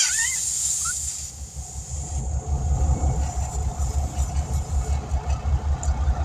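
Low, fluttering rumble of a running vehicle engine, with a high hiss that fades out about two seconds in.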